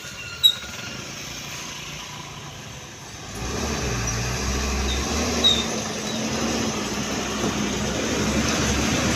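Road traffic: a heavy vehicle's engine and tyres rise suddenly about three seconds in, then go on as a steady rumble that slowly grows louder as it approaches.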